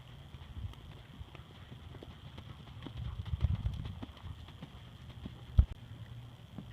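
Horse's hoofbeats, an uneven run of short knocks, over wind rumbling on the microphone, with one loud thump about five and a half seconds in.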